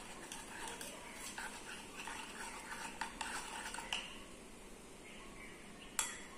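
Glass stirring rod clinking and scraping against the inside of a glass beaker while stirring the blackened, dehydrated glucose: a run of light, irregular clicks for about four seconds, then a single sharper clink near the end.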